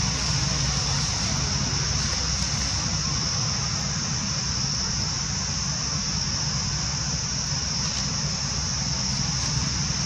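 Steady high-pitched drone of cicadas with an unchanging pitch, over a low rumble.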